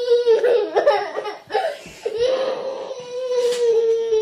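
A young girl crying in a tantrum: short broken sobs, then about halfway through a long, steady wail.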